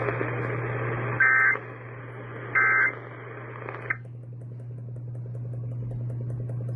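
Emergency Alert System end-of-message data tones over AM/FM radio: two short buzzy digital bursts about a second and a half apart, then the start of a third clipped off about four seconds in as the radio hiss drops away, marking the end of the severe thunderstorm warning. A steady low hum runs underneath.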